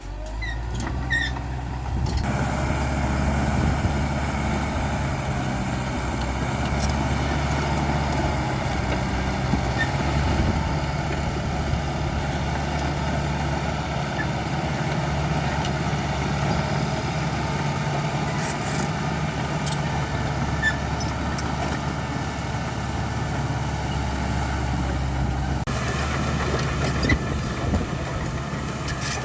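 Caterpillar D5K XL bulldozer's diesel engine running steadily, getting louder about two seconds in and shifting in tone near the end.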